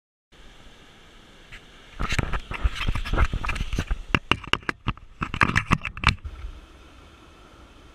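Handling noise from a camera mounted on the nose of a foam surfboard as hands adjust it: a rapid, irregular run of sharp clicks and knocks for about four seconds, with a short break in the middle, then only a faint steady hiss.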